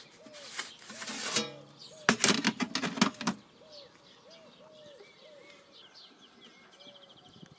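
About two seconds in, a short burst of metal scraping and clattering as the metal pizza peel is pulled from the Ooni Fyra 12 pellet oven and the oven door is set in place. After that, a bird calls repeatedly with short arched notes.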